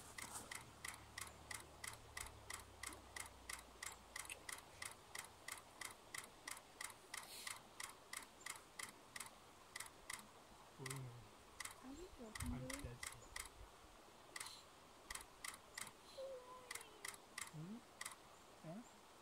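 Camera shutter clicking faintly and regularly, about two to three times a second, as it takes photos one after another; the clicks turn irregular with short gaps about halfway through.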